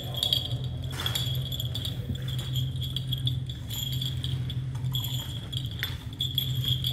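Small metal bells on an Orthodox church censer jingling as it is handled and swung, over a steady low hum.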